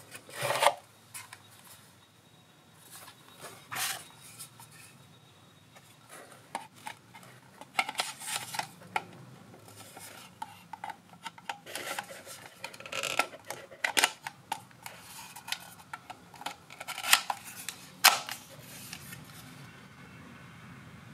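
Handling noises from a plastic pistol-grip RC transmitter being lifted out of its foam packaging insert and turned over in the hands. Irregular rubbing and scraping come with short clicks and knocks: a loud one right at the start and two sharp ones a few seconds before the end.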